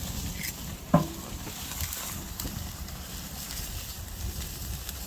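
Oak wood fire crackling with scattered small pops, under a steady low wind rumble on the microphone, and one brief sharp sound about a second in.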